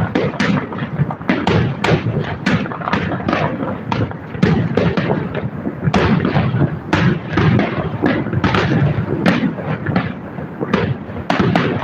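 Fireworks shells bursting in quick succession, several booms a second running into one another.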